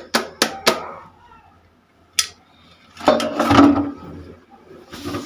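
Sharp knocks of kitchen utensils, about three a second, that stop about a second in. One more knock follows about a second later, then a longer clatter about three seconds in.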